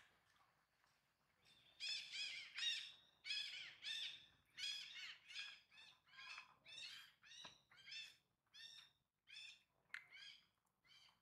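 An animal calling in a quick series of short, high calls, about two a second, each rising and falling in pitch. The calls start about two seconds in and grow gradually fainter.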